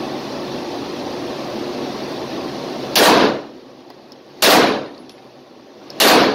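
Three slow, deliberate shots from a Walther PPQ 5-inch 9mm pistol, about a second and a half apart, each with a short echo off the walls of an indoor range. A steady background rush comes before the first shot.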